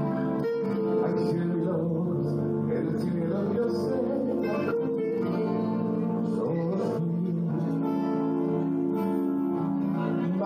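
Live band music led by an acoustic guitar playing chords, with sustained notes that change every second or so and no lead vocal in this stretch.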